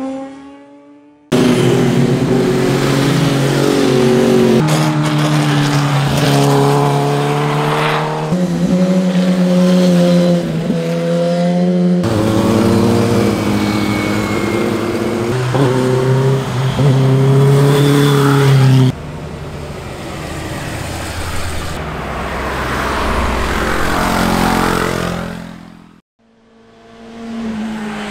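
Superbike engines revving high and accelerating hard, the pitch climbing in steps with short dips at each gear change. The passes are several separate clips spliced one after another, the sound cutting abruptly between them.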